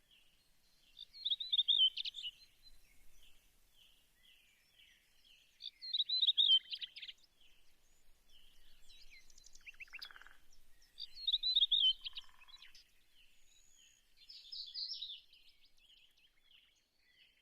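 Birds singing: a steady run of short chirps, with a louder warbling song phrase repeated about every four to five seconds.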